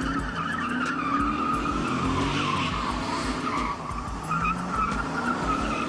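Car tyres squealing in a long, wavering screech over a high-revving engine as a car spins donuts, breaking traction.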